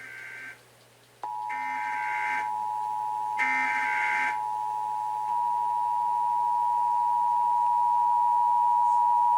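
Emergency Alert System data header bursts: short, harsh digital screeches, followed by the steady two-tone EAS attention signal. The tone starts about a second in and keeps going, with the last two header bursts sounding over its start. This is the opening of an EAS alert, here a National Periodic Test.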